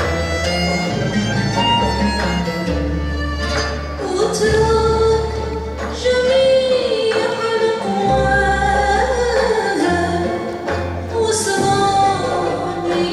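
A song: a singing voice holds long, wavering notes over instrumental backing with a bass line that steps from note to note.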